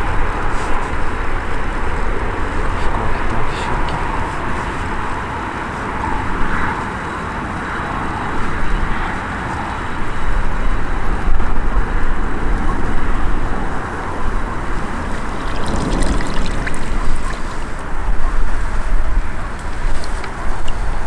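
Wind rushing and buffeting the microphone, gusting harder about halfway through, with river water lapping underneath.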